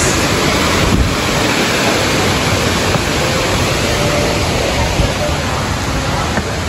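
Steady, loud rushing of waterfall and river water, with wind buffeting the microphone.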